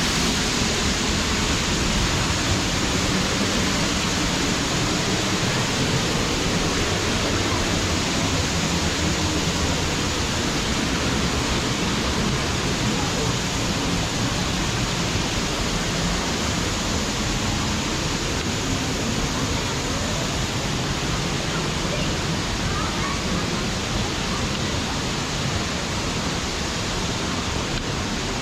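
Waterfall of about 25 feet pouring onto rocks close by: a steady, unbroken rush of falling water.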